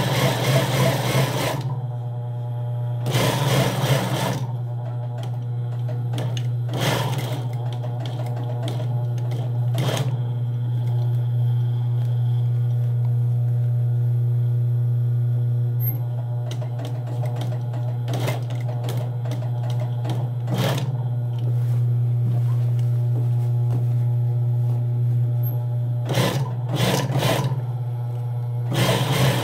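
Industrial sewing machine with its motor humming steadily, broken by several short runs of stitching, the longest near the start and near the end.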